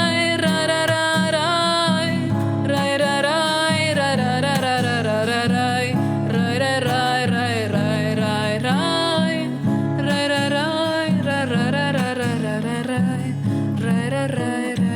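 Strummed acoustic guitar chords in a steady rhythm under a wordless sung melody that glides and bends from note to note.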